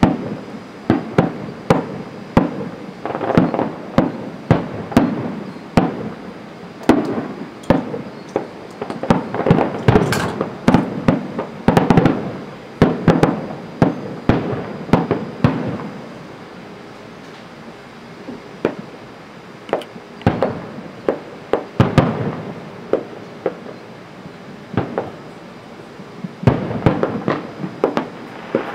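Aerial fireworks launching and bursting in a rapid string of bangs. The bangs thin out to scattered ones about halfway through, then come thick again near the end.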